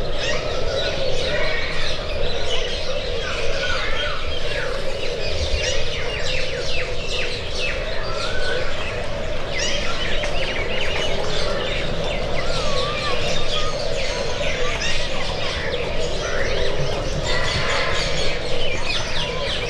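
Many small birds chirping and twittering in quick, overlapping calls, over a steady background hum.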